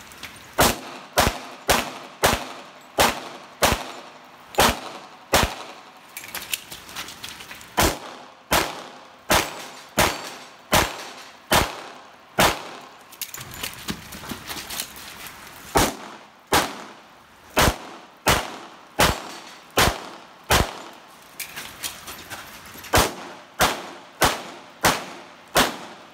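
A 1911 single-stack pistol in .45 ACP firing about thirty shots, roughly two a second, in four strings with short pauses between them.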